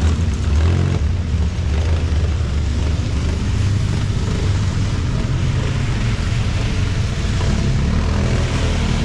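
City traffic on a rain-soaked avenue: a steady low engine rumble with the hiss of tyres on wet pavement.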